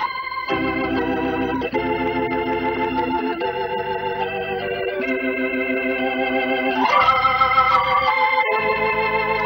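Intro music of sustained organ chords that change every second or so, with an upward slide into a higher chord about seven seconds in.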